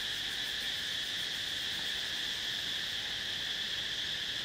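Steady, high-pitched drone of a forest insect chorus, continuous and unchanging.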